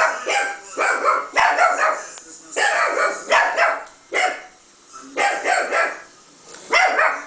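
Chihuahua barking repeatedly in short sharp barks, some in quick pairs, with a few pauses in the second half; the barking is her answering a recording of her own barking played back through computer speakers, so live and played-back barks mix.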